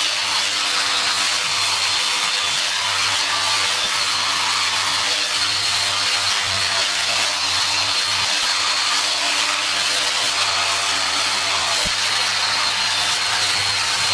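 Corded electric sander running steadily while sanding a cast aluminium motorcycle wheel's spokes, a constant hiss of abrasive on metal over a thin motor whine, scuffing off oxidation to prepare the wheel for paint.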